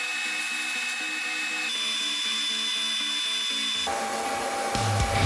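Airbrush hissing as it sprays paint, under background music with held notes; near the end the music turns heavier with a deep beat.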